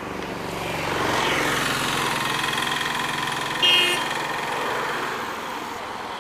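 A motor vehicle passing close by on the road, its engine and tyre noise swelling and its pitch falling as it goes past. A short horn beep about halfway through is the loudest sound.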